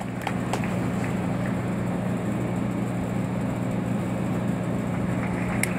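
Steady low hum with an even pitch in a large ice arena, starting abruptly at the outset and holding level throughout, without speech or applause.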